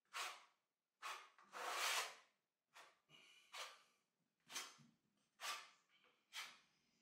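Notched steel trowel scraping white flooring adhesive across a cement-smoothed floor in repeated sweeping strokes, about one faint swish a second.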